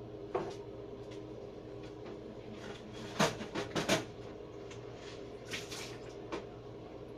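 A few light knocks and clatters, with a quick run of three or four about three seconds in, over a steady hum.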